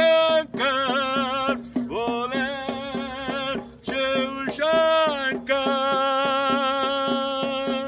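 A man singing a Hindu devotional bhajan in long, wavering held notes, over a steady quick percussive beat; the longest note starts about five and a half seconds in.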